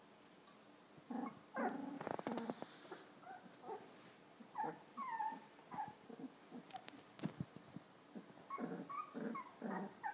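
Newborn golden retriever puppies vocalizing in play: short, high little growls and whimpers come in quick runs, some sliding up or down in pitch, starting about a second in.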